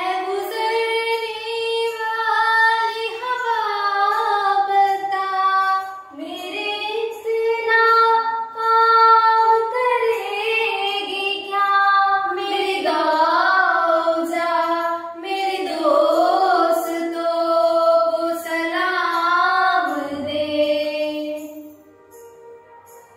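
Two women singing a devotional patriotic song, taking turns, with long held and ornamented notes. The singing stops near the end.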